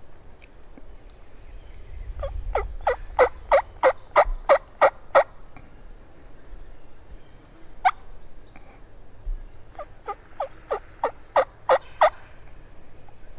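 Wild turkey calling: two runs of sharp, evenly spaced notes, about three a second, with a single note between them.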